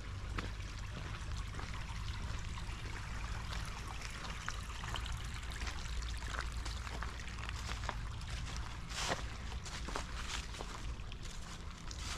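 Steady rushing of running water, with a constant low rumble beneath it and scattered faint ticks.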